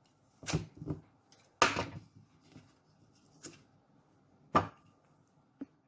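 Apples being cut with a plastic apple slicer-corer on a wooden cutting board, with the pieces handled on the board: about six separate sharp knocks, the loudest about one and a half seconds in.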